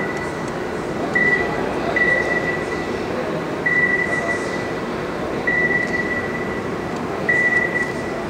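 Electronic beeping from a stealth radar-demonstration exhibit: one high steady pitch sounding about five times, each beep a different length from a quarter second to about a second and a half, over a steady background hum.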